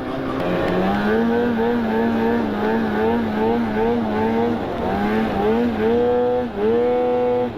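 Snowmobile engine running hard under throttle, its pitch wavering up and down as the throttle is worked, dipping briefly about five seconds in and again shortly before the end, then held high.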